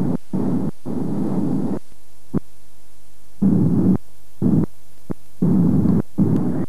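Jet airliner cabin noise during the descent to landing: a low rumble that comes and goes in uneven chunks, cutting in and out abruptly, over a faint steady hum.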